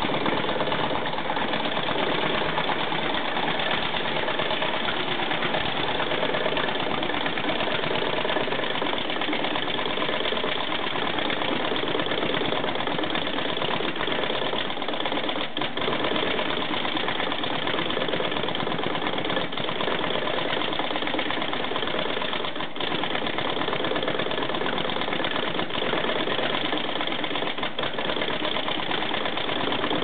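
EAS/RFID label testing and encoding machine running continuously, a steady mechanical noise with a few faint clicks scattered through it.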